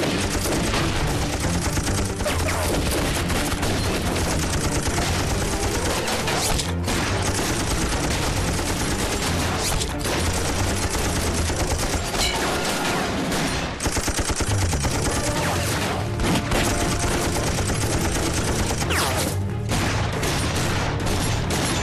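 Battle sound effects: a steady fusillade of rifle, pistol and machine-gun fire, shots overlapping almost without a break.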